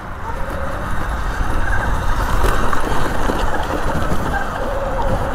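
Steady rushing noise with a deep rumble, typical of wind on the microphone while riding a Sur-Ron electric dirt bike, with a faint steady whine coming in near the end.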